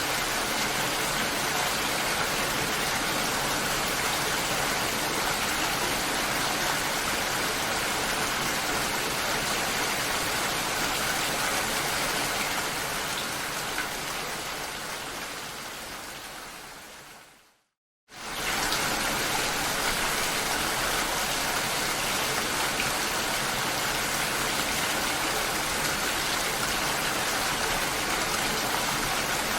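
Steady heavy rain, an even hiss. About two-thirds of the way through it fades out to a moment of silence, then starts again suddenly at full strength.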